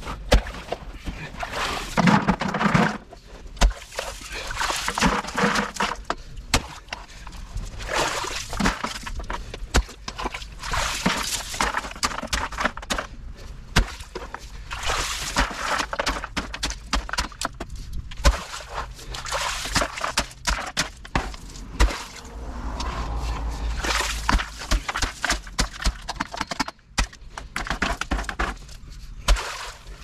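Clamshell post-hole digger working wet pea gravel and muddy water: irregular crunching and scraping of stones, sloshing and thunks as the blades bite and the spoil is lifted out.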